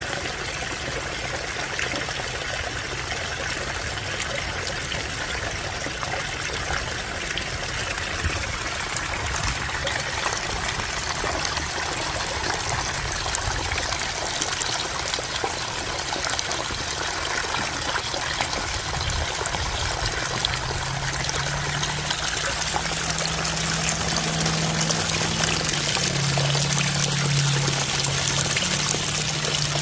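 Waterfall rushing steadily, its flow up after rain. A low steady hum joins about two-thirds of the way through.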